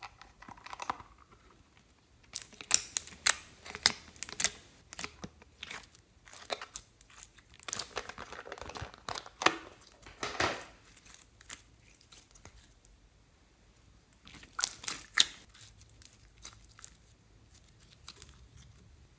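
Glossy slime squeezed, stretched and pressed by hand, making clusters of sticky crackling clicks and pops with quiet gaps between.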